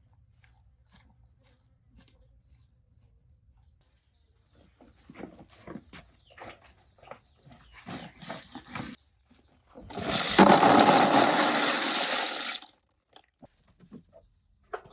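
A few scattered light knocks and rustles, then a loud rush of water about ten seconds in, lasting a couple of seconds and cutting off abruptly.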